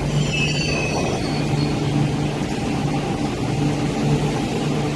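A Kwun Tong Line metro train pulling out of the platform and picking up speed. It gives a steady low hum, with a high whine in about the first second.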